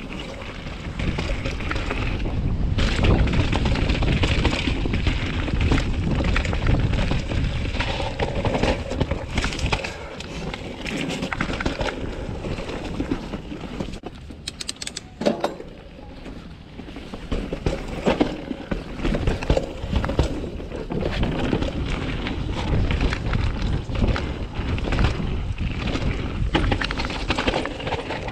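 2020 Norco Sight full-suspension mountain bike riding down a dirt forest trail: tyres rolling over dirt and roots, with the bike knocking and rattling over bumps and wind buffeting the microphone. The ride eases off briefly a little past the middle, then picks up again.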